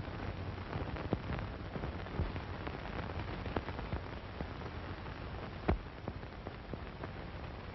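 Steady hiss and crackle of an old optical film soundtrack, with scattered clicks and pops and one louder pop about six seconds in.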